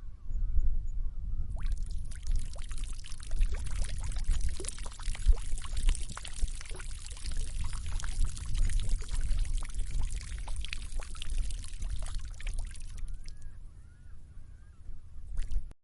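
A person urinating: a steady rushing stream of urine splashing that starts about a second and a half in, runs on and tapers off near the end with a few last dribbles.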